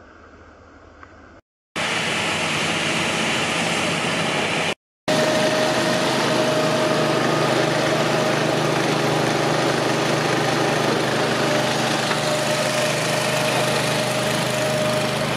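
Processing machinery runs steadily: a belt conveyor and press driven by motors, with a constant hum and a steady high whine. Early on there is a brief faint stretch, and the sound cuts out abruptly twice, about a second and a half in and again near five seconds.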